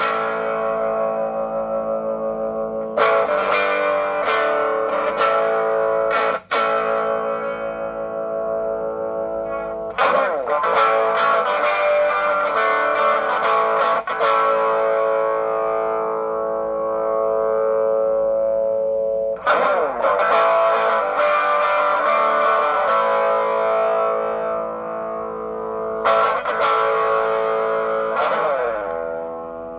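Electric guitar played through a Joyo British Sound overdrive pedal into a small Marshall amp. Chords are strummed and left to ring out, with a new chord every few seconds and short flurries of repeated strums.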